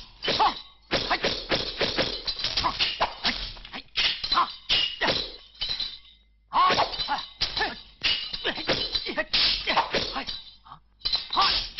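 Kung-fu fight sound effects: rapid flurries of sharp punch and kick hits, several a second, with a short pause a little past halfway.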